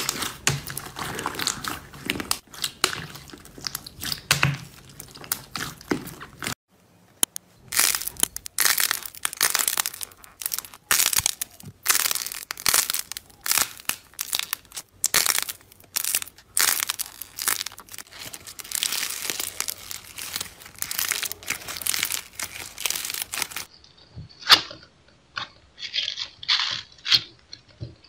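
Slime being squeezed and pressed by hand, with dense crunching, crackling and popping. The character of the crackle changes abruptly twice, once about a quarter of the way in and again near the end, as one slime gives way to another.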